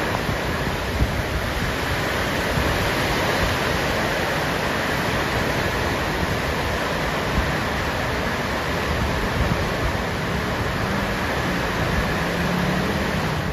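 Heavy rain pouring down: a steady, dense hiss that holds at an even level throughout.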